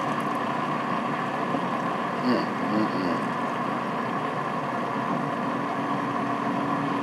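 PowerXL Vortex 10-quart air fryer oven running on its rotisserie setting, its convection fan making a steady whirring hum.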